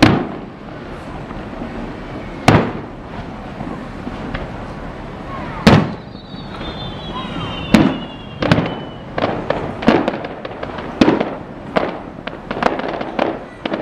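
Aerial fireworks shells bursting: single sharp bangs a few seconds apart, then a quicker run of bangs, about two a second, in the last few seconds. A falling whistle sounds a little after the middle.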